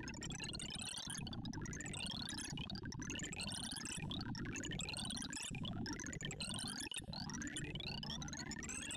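Synthesized sonification from the ArrayV sorting visualizer running an iterative pairwise sorting network on 1,024 numbers: a rapid stream of short tone blips whose pitch follows the values being compared. They form rising pitch sweeps that start over about once a second.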